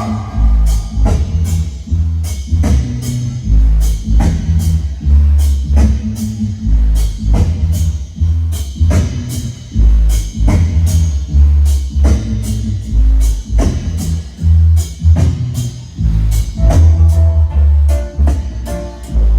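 Loud music with a heavy, booming bass line and a steady drum beat, played through a mobile sound system.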